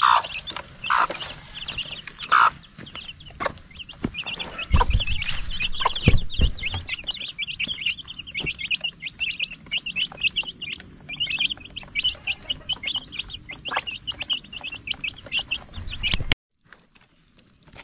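A brood of chicks peeping rapidly and continuously, with a few low clucks from the mother hen in the first seconds. A few dull low thumps around the middle, and the sound cuts off suddenly near the end.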